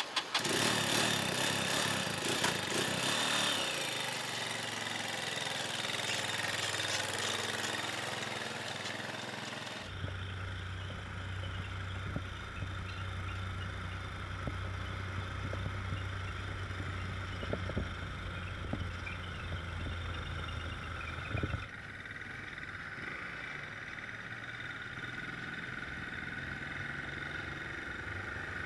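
Motorcycle engine running on hydrogen gas split from water by an onboard electrolysis unit. For the first ten seconds it is loud with a lot of hiss. Then it changes abruptly to a steadier low hum with a few clicks, and changes again abruptly near the end.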